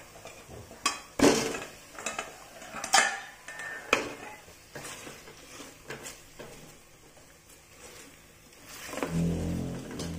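Pieces of beef rib dropped into a stainless steel stockpot and stirred with a silicone spatula: irregular knocks and scrapes against the metal pot. Near the end, a low rumbling scrape as the pot is shifted on the gas stove grate.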